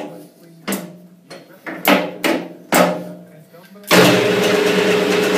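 Five sharp metallic knocks, each with a short ring, then about four seconds in the metal lathe starts and runs steadily with a held tone, its four-jaw chuck spinning.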